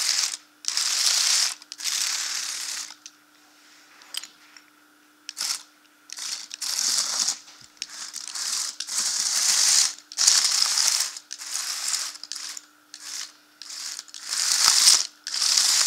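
Small Lego tracked vehicle's motors and gears whirring in repeated bursts of a second or two, stopping and starting, while its plastic tracks rattle and click over loose Lego bricks.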